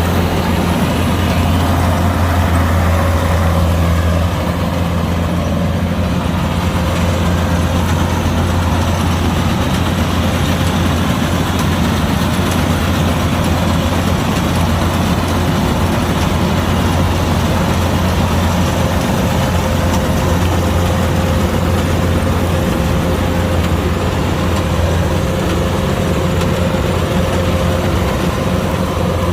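Kubota DC-105X combine harvester running steadily, a deep even drone from its engine and machinery with a thin steady whine over it, easing slightly about four seconds in.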